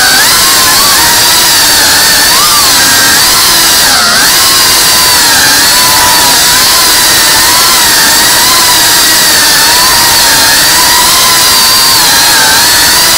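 Tiny whoop FPV drone's brushless motors and propellers whining loudly and steadily, the pitch wavering up and down as the throttle changes.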